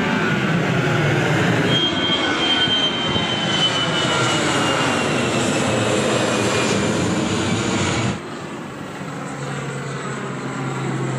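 Jet airliner flying low overhead, its engines loud with a high whine that slowly falls in pitch as it passes. About eight seconds in, the sound cuts to a quieter, steadier drone with a constant low hum as a twin-turboprop airliner flies over.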